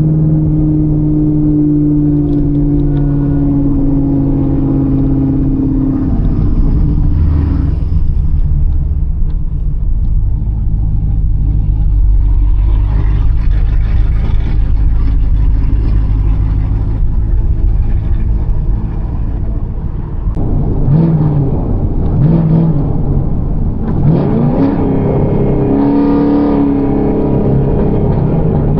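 Chevrolet Camaro ZL1's supercharged V8 running under way. The engine note holds fairly steady at first, then rises and falls with the throttle in the last third.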